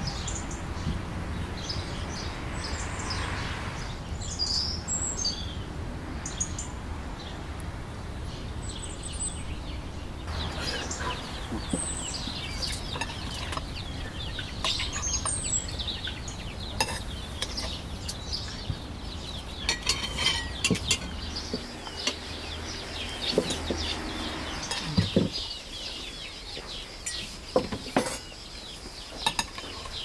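Birds chirping in the first half, then a metal serving spoon clinking and scraping on glass and china dishes and plates, with repeated sharp clicks.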